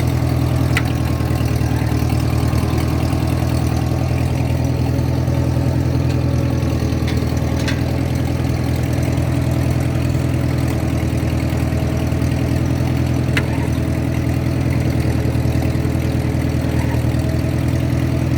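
Ford 8N tractor's four-cylinder gasoline engine running steadily at a low throttle, with a few faint ticks over it.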